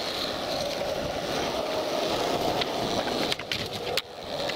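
Skateboard wheels rolling steadily over smooth concrete, with a couple of sharp ticks a little over three seconds in.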